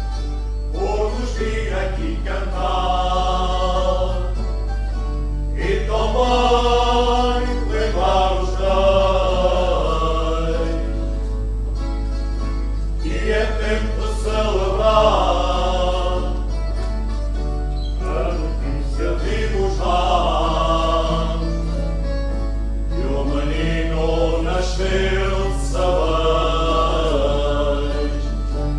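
A men's folk group singing an Azorean Cantar aos Reis Kings' Day carol with accordion and guitar accompaniment, in sung lines separated by short breaks.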